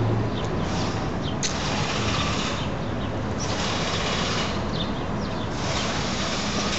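Street traffic noise with vehicle engines running and a car driving past near the end; a high hiss swells and fades about every two seconds, with a sharp click about a second and a half in and a few short high chirps. No siren is sounding.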